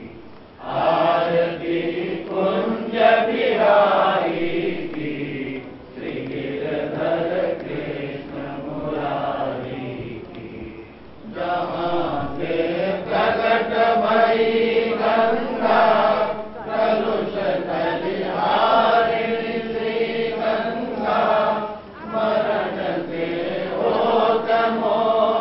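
A crowd of devotees chanting a Hindu devotional hymn together, many voices in unison, in sung phrases with short breaks between them.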